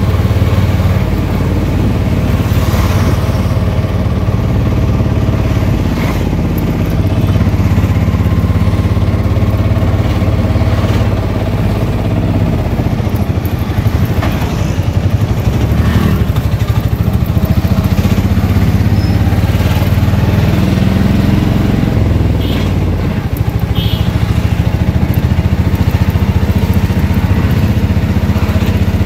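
Auto-rickshaw's small engine running as it drives through town traffic, heard from inside the open cabin. The engine pitch shifts up and down as it speeds up and slows.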